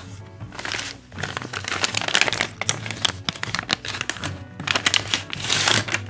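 Plastic packaging and paper crinkling as a boxed magnetic door lock is unwrapped by hand, in irregular bursts over steady background music.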